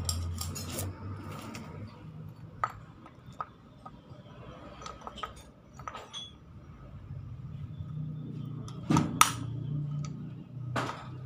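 Metal tools and small metal parts clinking and tapping as a Hino 500 truck relay valve is taken apart by hand, with two sharper knocks about nine seconds in. A low hum sits underneath in the second half.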